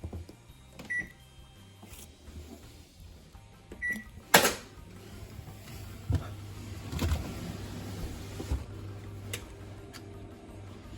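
Panasonic drum-type washing machine: two short control-panel beeps and a sharp click, then the drum drive starts with a steady low hum and a few knocks as the drum begins to turn.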